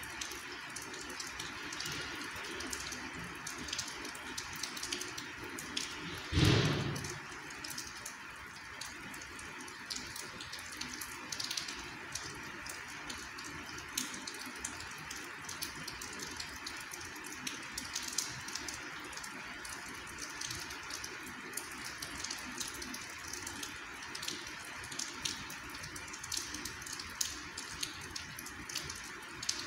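Light rain falling: a steady hiss scattered with many small drop ticks. About six seconds in there is a single louder thump.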